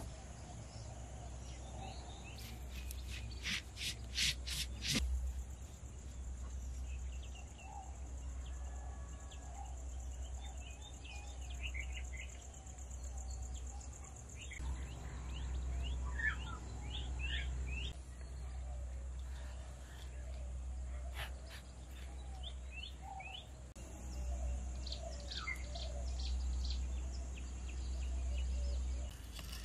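Rural outdoor ambience: birds chirping and calling on and off, with a quick run of sharp repeated notes around three to five seconds in. Under them run a steady high hiss and a low rumble.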